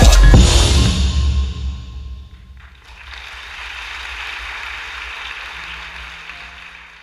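Electronic music with heavy bass hits ending about two seconds in, then audience applause that fades away near the end.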